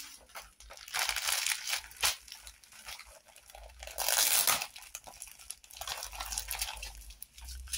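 Small plastic bags of diamond-painting drills crinkling and rustling as they are handled, in several short bursts, the loudest about four seconds in.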